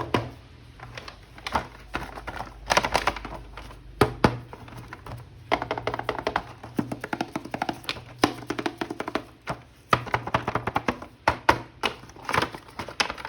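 Plastic toy packaging being handled and opened by hand: a dense, irregular run of crinkles, clicks and taps, busiest in the second half.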